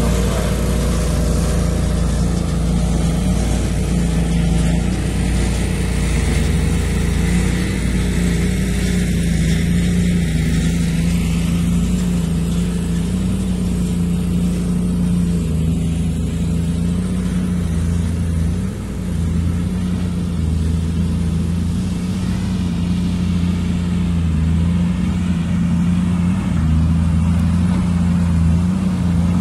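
Heavy-equipment diesel engine running steadily at a constant pitch, a continuous low hum and rumble.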